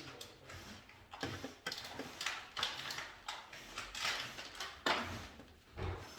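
Irregular clicks, scrapes and rustles of hand wiring work: tools and wires being handled, with a sharp click about five seconds in and a duller knock near the end.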